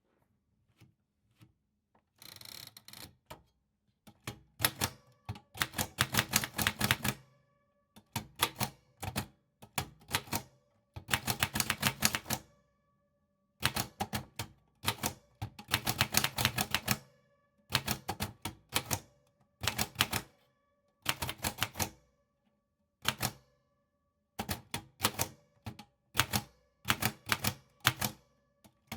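Typewriter keys striking in quick runs of several clacks, with short pauses between the runs.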